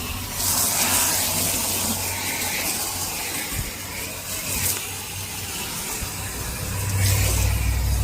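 Water jet hissing as it sprays over a car's bodywork, coming and going in surges. A low steady hum grows louder near the end.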